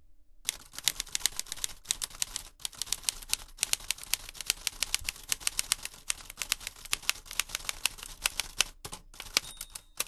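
Typewriter keys clacking in a rapid, uneven run of keystrokes with a few short pauses: a typing sound effect accompanying text appearing letter by letter.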